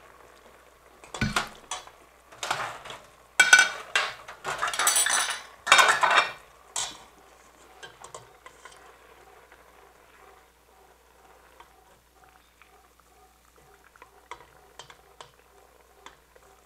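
Metal ladle scraping and clinking against a stainless steel pot as sauce is spooned over the fish, loudest in a burst of clattering strokes during the first half. After that come a few light clinks over the faint bubbling of the simmering sauce.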